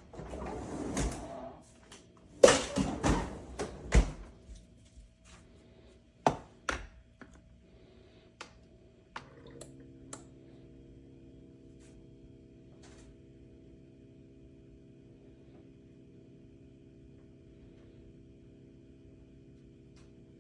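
Clicks and thunks of a single-serve coffee maker being handled, loudest in a cluster a few seconds in. From about nine seconds in comes a steady low hum as the machine runs.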